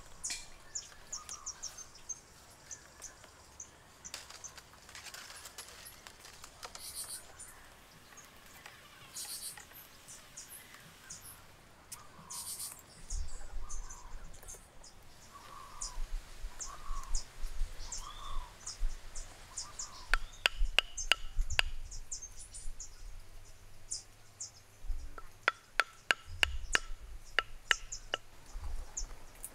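Bamboo stakes struck with a wooden block: two runs of sharp knocks in the second half, each with a short hollow ring. Steady high insect and bird chirping continues throughout.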